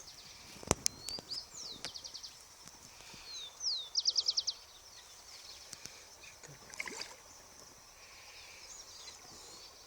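A bird calling with short, curved whistled notes and two fast runs of repeated notes, the louder run about four seconds in. A faint steady high hiss runs underneath, and there are a few sharp clicks about a second in.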